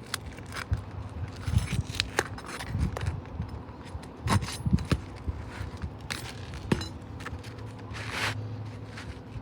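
Hand tools scraping and clicking against asphalt roof shingles while nails holding the shingle are worked loose, with a few dull knocks in between.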